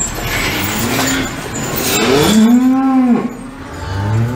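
Cattle mooing. A short rising moo comes about half a second in, then a longer, louder moo of about a second near the middle, and another moo begins near the end.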